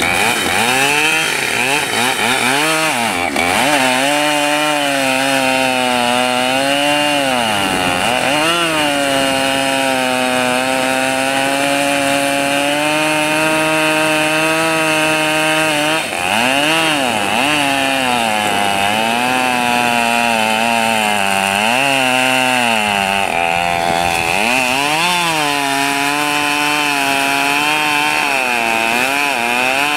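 Husqvarna 572XP two-stroke chainsaw running near full throttle while cutting into a maple trunk. The engine pitch sags several times as the chain loads up in the wood and climbs back each time it frees.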